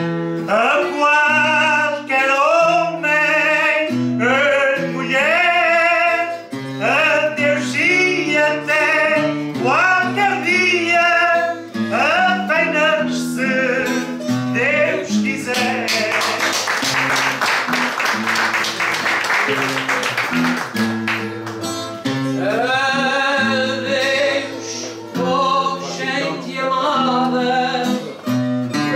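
Singing over a plucked-string accompaniment. About halfway through, the voice stops for a few seconds of fast, busy picking on the strings, then the singing comes back in.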